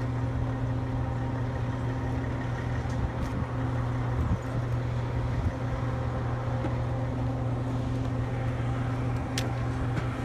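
An engine running steadily at idle, a constant low hum, with a short sharp click near the end.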